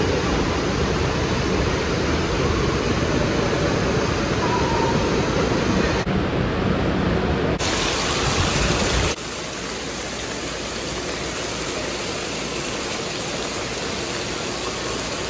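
Steady rushing and splashing of running water from an indoor water park's lazy river, fountains and play-structure sprays. The noise changes suddenly a few times and drops a little in level about nine seconds in.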